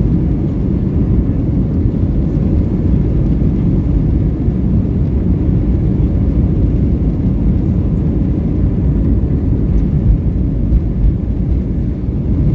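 Airbus A320-232's IAE V2500 turbofan engines at takeoff power, a loud steady low rumble heard inside the passenger cabin.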